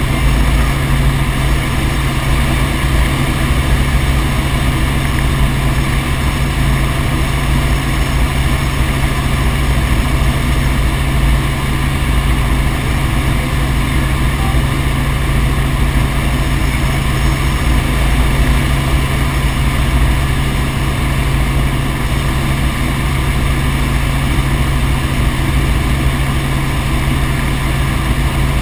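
Helicopter in steady flight: rotor and engine running loud and unchanging, with a strong low hum.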